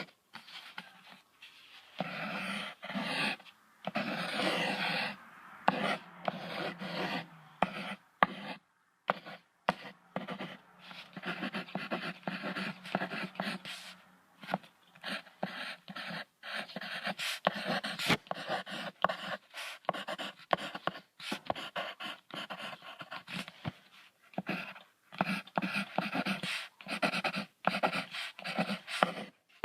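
Cheetah calls: a long series of rough, breathy sounds in quick, irregular bursts, broken by short pauses.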